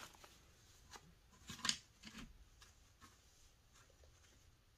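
Mostly quiet, with a few faint, brief rustles and taps of paper banknotes being squared into a neat stack and handled; the loudest comes about a second and a half in.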